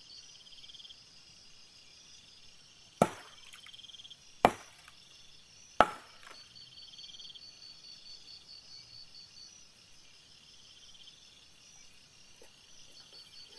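Three sharp knocks about a second and a half apart, starting a few seconds in, each with a brief ring after it. Underneath, insects chirp steadily in fast pulsing trains.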